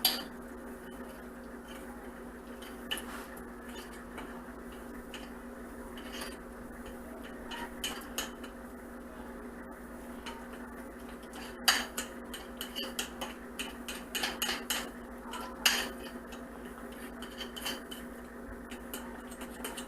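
Spoon and fork beating pancake batter in a bowl, metal clinking against the bowl in scattered strokes that come quicker about two-thirds of the way through. A steady low hum runs underneath.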